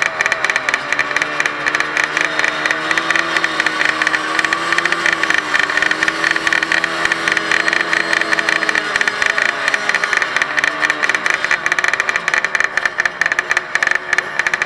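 Dirt-bike engines revving on a motocross start line, one held at steady high revs before easing off and blipping about two-thirds of the way through, over the crackle of other bikes running.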